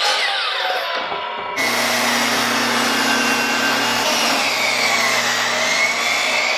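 A DeWalt miter saw's whine falling as the blade winds down after a cut, then, about a second and a half in, a portable table saw running steadily as a long board is ripped along its fence.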